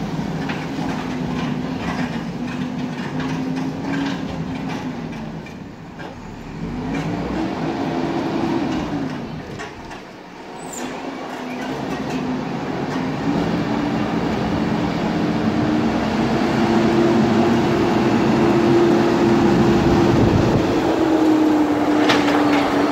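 A bulldozer's diesel engine working under load, its pitch rising and falling as it is throttled, with metallic clanking. The engine eases off about ten seconds in, then climbs and runs steadily at a higher pitch.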